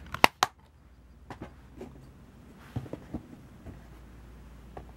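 Plastic DVD case handled: two sharp clicks within the first half second, then scattered faint clicks and knocks of cases and boxes being moved, over a low steady hum.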